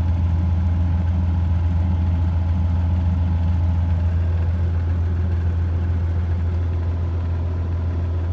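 2006 Freightliner Classic semi truck's diesel engine idling with a steady, deep, even drone.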